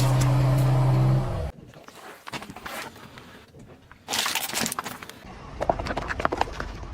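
Car engine running steadily, with crunching, until it cuts off about a second and a half in. Then come scattered crackles and crunches of objects being crushed under a car's tyre, with a louder burst of crunching about four seconds in.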